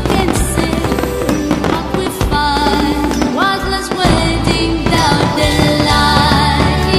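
Music with a steady bass and a melody line, with firework bangs and crackle mixed in beneath it.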